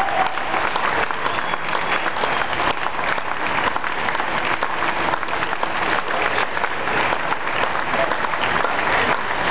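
Large crowd clapping, sustained steady applause.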